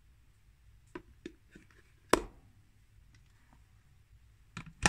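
Clicks and knocks from a rice cooker's lid and steamer tray being handled: a few light clicks about a second in, one sharp knock near the middle, then a quick run of clicks ending in a louder click with a brief ring near the end.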